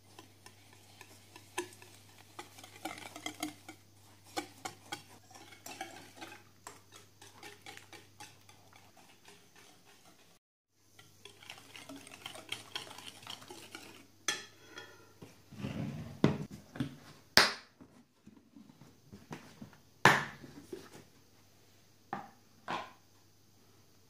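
Wire whisk beating eggs and sugar in a glass bowl: fast, dense clicking and scraping of the metal wires against the glass. There is a brief gap about ten seconds in, and a few louder sharp clinks of metal on glass in the second half.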